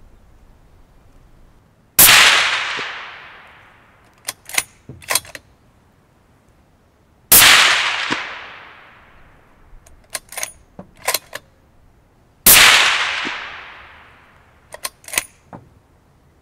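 Three suppressed .338 Lapua Magnum rifle shots from a Ruger Precision Magnum fitted with a 3D-printed titanium CGS Hekate 338 suppressor, about five seconds apart. Each shot has a long fading tail and is followed by a few quick clicks as the bolt is worked to eject the case and chamber the next round.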